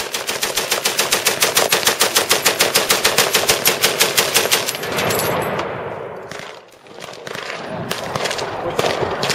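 Belt-fed, water-cooled machine gun firing a long continuous burst of about nine rounds a second, which stops about five seconds in. A few fainter, scattered gunshots follow near the end.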